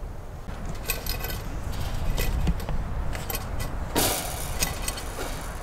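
Irregular metallic clinking and rattling from barbed wire and fence-stretching tools (a come-along and a wire puller bar) as the wire is tensioned, over wind rumbling on the microphone.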